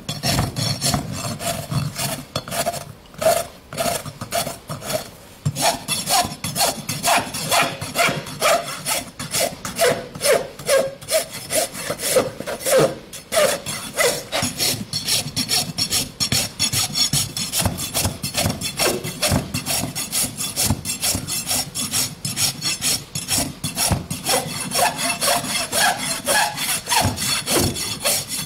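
Farrier's rasp drawn back and forth across a horse's hoof wall in a steady rhythm of rough scraping strokes, dressing the outside of the hoof. The strokes ease off for a moment about four seconds in, then carry on.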